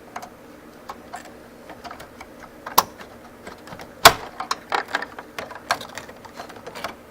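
Irregular clicks and taps of plastic and metal computer parts being handled and slid out of a desktop PC's case, with two sharper knocks about three and four seconds in.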